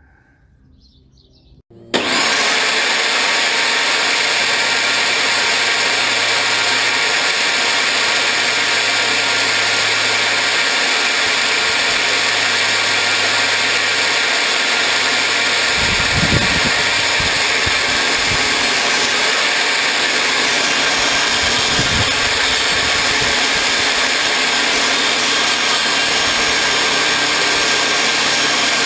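An electric power tool running steadily at full speed, its motor giving a loud even noise with a thin high whine. It starts abruptly about two seconds in, and a few dull thumps come through it around the middle.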